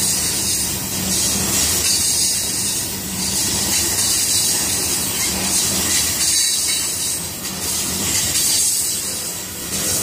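Union Pacific covered hopper cars of a freight train rolling past close by: a steady rumble and hiss of steel wheels on rail, swelling and easing every two or three seconds.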